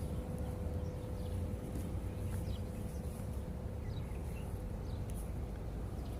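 Steady background noise: a low rumble and a constant hum, with faint short bird chirps now and then.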